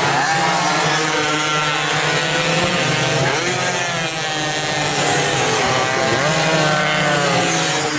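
Several racing motorcycle engines revving hard at high pitch, several at once, their pitch rising and falling as the bikes pass.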